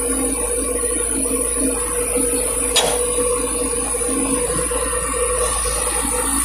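Steady machine hum with constant tones, and a single sharp click about three seconds in.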